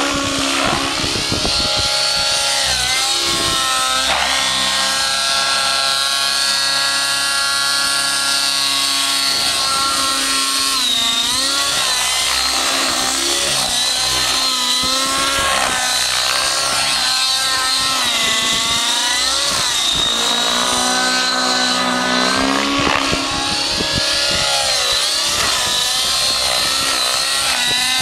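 Nitro-powered Curtis Youngblood Rave 90 RC helicopter flying aerobatics: its glow engine and rotor run loud and high-pitched, the note dipping and rising over and over as the manoeuvres load and unload it.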